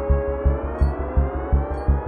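Background electronic music: a steady pulsing bass beat, about three a second, under a held synth chord that starts to rise in pitch about half a second in, with a faint high tick about once a second.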